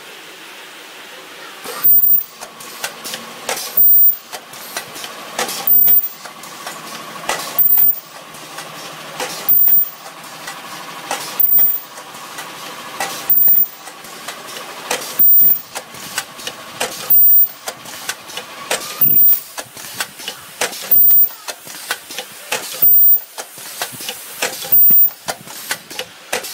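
Ultrasonic welding machine cycling automatically on kitchen scouring sponges: a short, loud, shrill high-pitched burst about every two seconds as each weld fires, with mechanical clatter in between.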